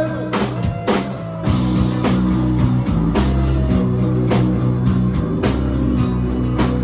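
Live rock band playing loud, with heavy bass notes, guitar and regular drum hits; the full band comes in harder about a second and a half in.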